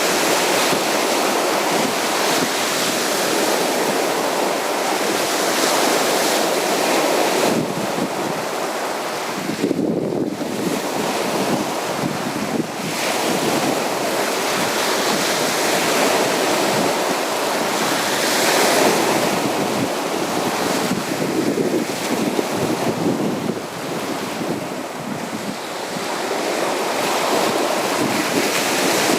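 Sea surf washing onto a beach: a continuous rushing of waves that swells and eases every few seconds.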